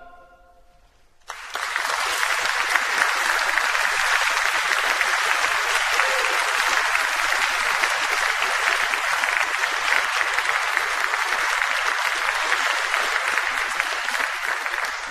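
A choir's last sung chord dies away, then about a second in an audience bursts into steady applause, which begins to fade near the end.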